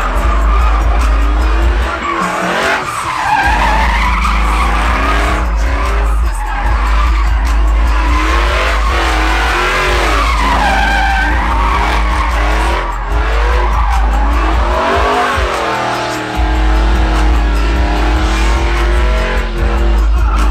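Pickup truck doing donuts: its tyres squealing with a wavering pitch over the engine revving. The low end drops out briefly twice, about two seconds in and again near fifteen seconds.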